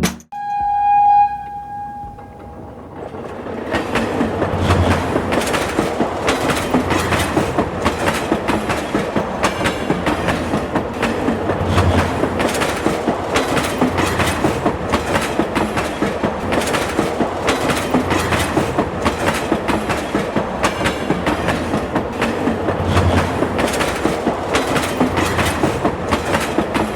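A train horn sounds once, briefly, then gives way to a steady, rhythmic clickety-clack of train wheels running over rail joints.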